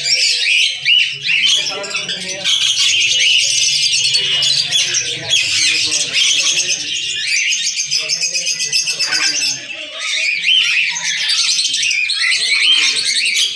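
Many caged birds chirping and squawking together in a dense, unbroken chorus of high, fast calls, with people talking underneath.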